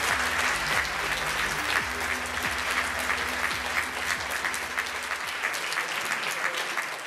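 Audience applauding steadily, many hands clapping at once, easing off slightly toward the end.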